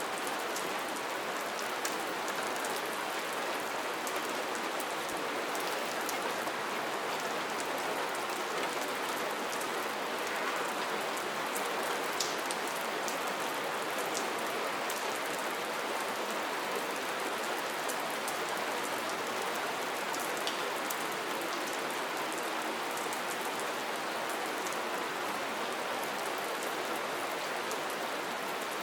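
Steady, even rain falling, with scattered sharper drop ticks over the constant patter.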